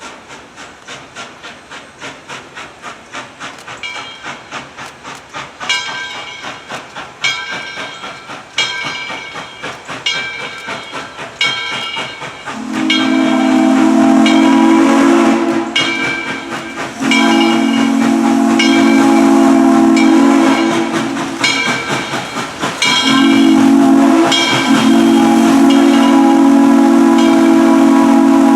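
Southern Railway 630, a 2-8-0 steam locomotive, approaching and working steam with rhythmic exhaust chuffs growing louder, its bell ringing about every one and a half seconds. About halfway through its steam whistle sounds long, long, short, long: the grade crossing signal.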